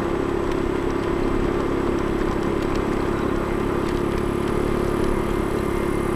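Scooter's motor running at a steady speed under way, a constant hum over road noise.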